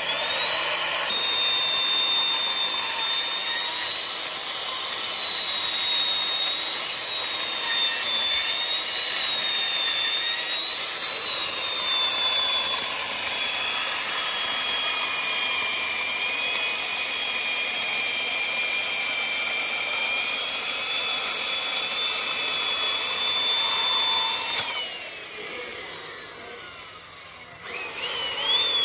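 Handheld electric power tool's motor running with a high whine that wavers slightly in pitch over a rushing hiss. About 25 seconds in it is switched off and spins down with a falling whine, then starts again near the end.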